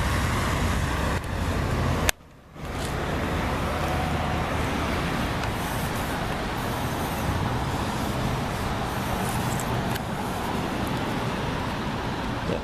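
Steady road traffic noise from a street. A sharp click about two seconds in is followed by a brief drop in sound before the traffic noise resumes.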